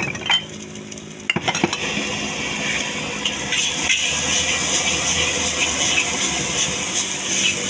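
Nasi goreng frying in a steel wok with a few sharp clinks of the metal spatula against the pan in the first two seconds. From about two seconds in, a steady, louder sizzle sets in as green vegetables are stirred through the rice.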